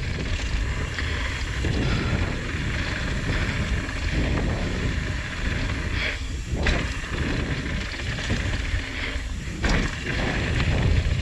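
Mountain bike riding fast down a dirt downhill trail: wind rushing over the microphone, with the tyres and the bike's chain and frame rattling, and a couple of sharp knocks in the second half.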